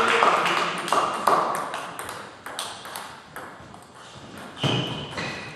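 Table tennis ball clicking off bats and table in a quick rally, the clicks thinning out into a few fainter, more widely spaced taps as the point ends.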